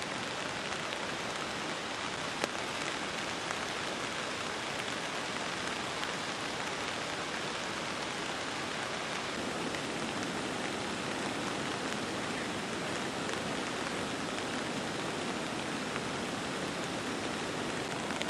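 Steady rain falling on surfaces, an even hiss with one brief click about two and a half seconds in.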